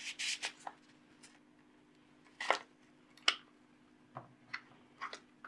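Handling noise from a plastic hot air gun handle turned over in the hands: a short scraping rustle at first, then two sharp plastic clicks about a second apart and a few fainter ticks near the end.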